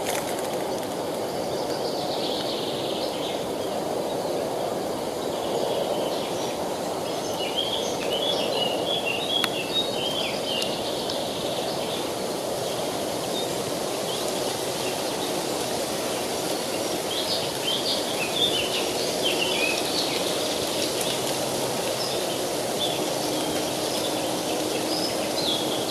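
River water rushing steadily, with small songbirds giving short runs of quick high chirps a couple of seconds in, again around eight to ten seconds, around seventeen to twenty-one seconds, and near the end.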